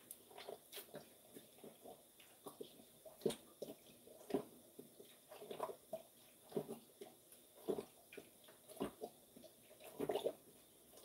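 Gulping as makgeolli is drunk straight from a plastic bottle: short, irregular swallows about once or twice a second, a few of them louder, while the bottle is downed in one go.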